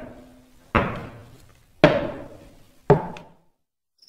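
Slow, heavy footsteps on a staircase, a story sound effect: about one step a second, each a sharp thud with an echoing tail.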